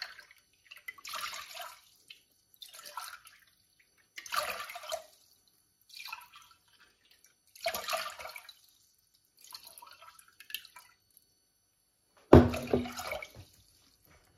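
Cold water poured a glassful at a time, from a bottle into a drinking glass and from the glass into a stainless steel pot, as a series of short splashing pours. This is water being measured out by the glass. A sharp knock comes near the end.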